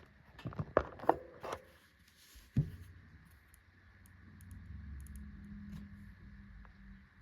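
A few sharp clicks and knocks from handling the mechanical keyboard, then one thump about two and a half seconds in, followed by a faint low steady hum.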